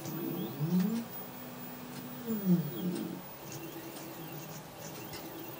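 Small electric motors of a scale-model Atlas road-rail excavator whining as they run: the pitch rises about half a second in, holds steady, then falls away around two and a half seconds in, followed by a quieter stretch.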